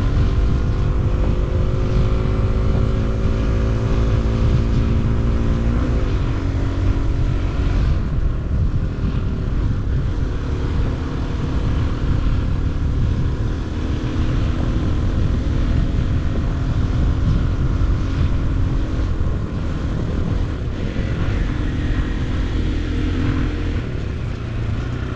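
Motorcycle engine pulling under way, its pitch climbing steadily for about six seconds, then dropping at a gear change before it runs on at a steadier pitch. A heavy wind rumble on the microphone runs underneath.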